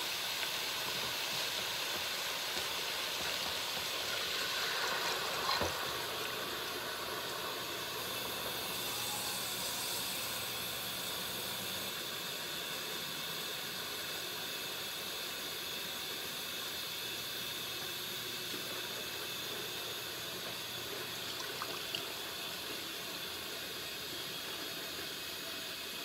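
Browned chicken pieces sizzling steadily in a large stainless steel pan, with a single knock about five seconds in.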